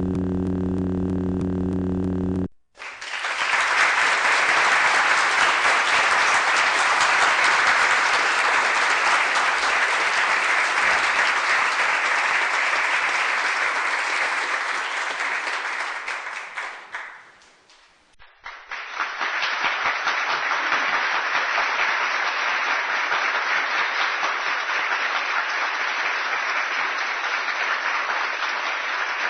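A steady low buzz for about two and a half seconds, then a crowd applauding, fading out around the middle; a second, thinner-sounding applause clip starts a moment later.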